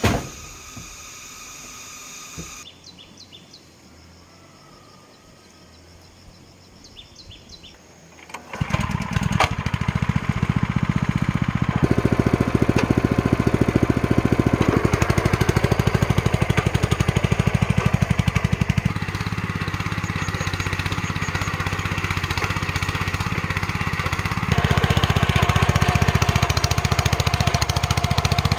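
A small engine starts about a third of the way in and then keeps running with a rapid, steady beat, its loudness shifting a few times.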